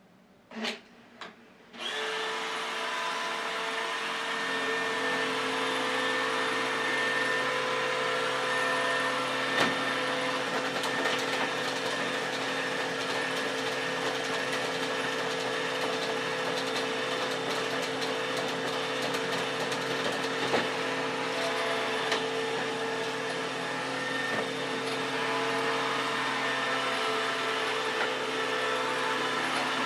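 iRobot Roomba e5 robot vacuum starting up after two short sounds, then running steadily with its motor and brushes humming and the odd small click. Its stock brushes are height-adjusted with vinyl tape, and the grinding noise is gone and the squeal nearly gone.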